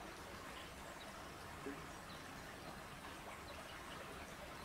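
Faint, steady outdoor background hiss with scattered faint high chirps and one soft knock about a second and a half in.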